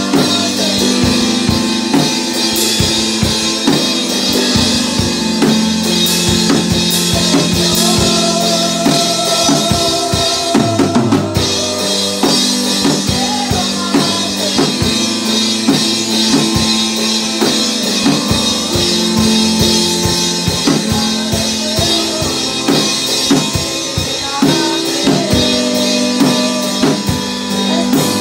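A boy singing a worship song into a microphone, amplified over backing music with a drum kit keeping a steady beat.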